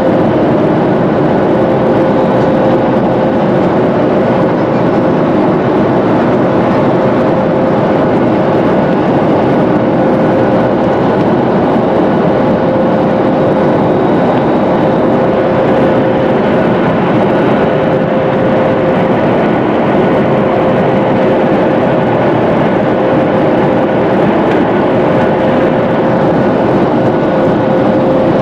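Airliner cabin noise in flight: a loud, steady rush of engine and air noise with a constant hum running through it.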